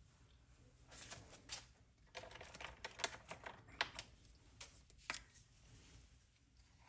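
Faint, scattered clicks and rustles of small metal plastic-welding staples and a plastic piece being handled, mostly between about one and five seconds in.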